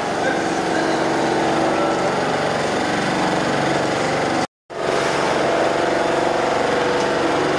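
Steady running of a small engine or motor, with a complete dropout lasting a fraction of a second about halfway through.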